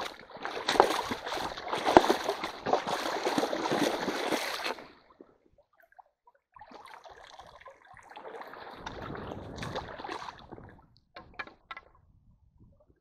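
Water splashing and sloshing as waders stomp through a shallow, rocky stream toward a set hand net, loud and irregular, stopping about five seconds in. After a short pause, softer sloshing and draining as the scoop net is worked and lifted, then a few small clicks.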